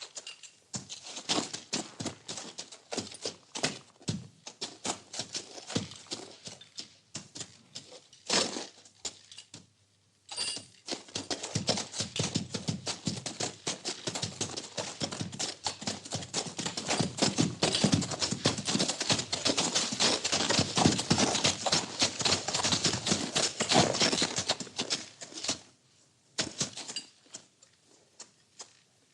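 Horse stable sounds: dense rustling and crackling of hay and straw with many quick clicks and taps. It pauses briefly partway through, is busiest in the middle and dies away near the end.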